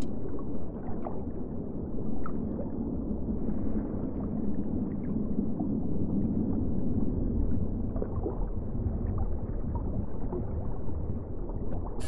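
Underwater ambience: a steady, muffled low rumble of water with small, scattered bubbling pops.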